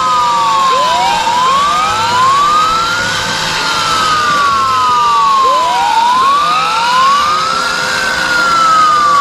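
Electronic wail sirens of toy remote-control fire trucks: two sirens sounding together out of step, each rising in pitch and then falling more slowly, repeating every few seconds.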